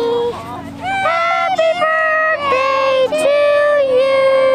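Music: a single voice singing long held notes that bend from one pitch to the next, with no clear words.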